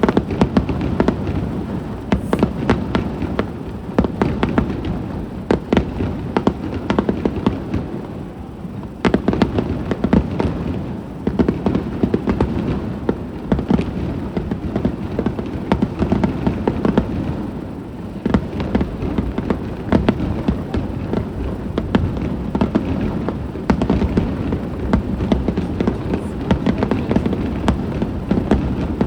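Aerial fireworks display: shells bursting in rapid, irregular succession, a dense run of sharp bangs and crackles with no let-up.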